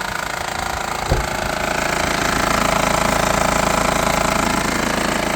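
Engine idling with a rapid mechanical clatter, the noise that shows up at idle. A single thump about a second in, and the sound grows a little louder about two seconds in.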